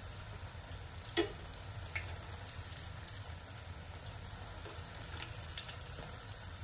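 Rounds of rice and urad dal batter deep-frying in oil in a steel pan: a steady sizzle with scattered small crackles and pops. A sharper click about a second in comes from the slotted steel spoon touching the pan.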